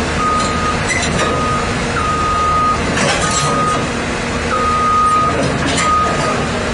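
Caterpillar 319D LN excavator's travel alarm beeping as the machine tracks: a steady half-second tone about once a second, over the diesel engine running, with a few knocks.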